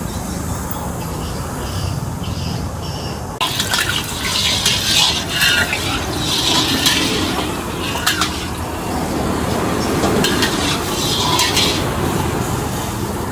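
Liquid being poured and splashing in irregular spurts over a steady background of street noise. The sound changes abruptly about three and a half seconds in.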